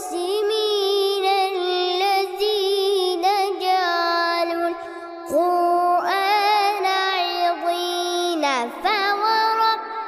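A young boy reciting the Quran in a melodic, drawn-out style, holding long notes with wavering ornaments and sliding up and down between pitches, with a short breath about halfway through.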